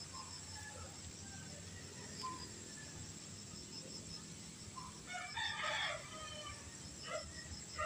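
A rooster crowing once, faintly, about five seconds in, with a couple of short calls near the end.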